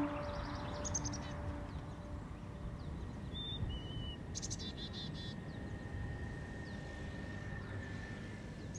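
Outdoor nature ambience: a steady low rumble with small birds chirping in short bursts. There is a quick run of chirps about a second in, two short whistled notes around the middle, and a rapid trill just after them. A low held musical tone fades out within the first second.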